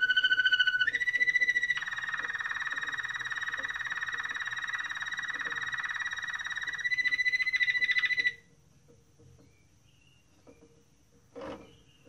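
Waterslager (Malinois) song canary singing: fast rolling trills, each held on one steady pitch, stepping up to a higher note about a second in, then a long lower rattling trill, a higher trill near the end, and a sudden stop about eight seconds in. A faint knock near the end.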